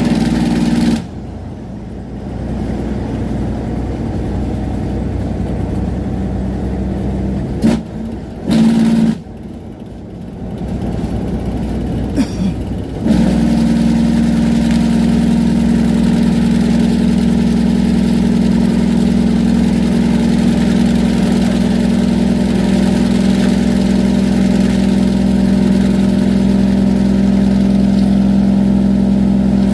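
Tractor-trailer's diesel engine brake (jake brake) droning, holding the truck back on a long downhill grade, heard through its newly repaired muffler. The drone cuts out about a second in, leaving quieter engine and road noise, blips back on briefly twice, then comes back on a little before halfway and holds steady.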